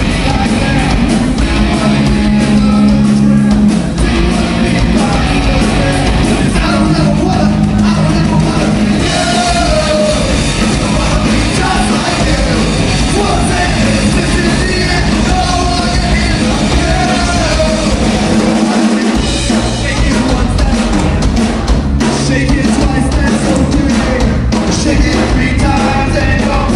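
Live rock band playing loudly: electric guitar, bass guitar and drum kit, with a singer's vocals over them.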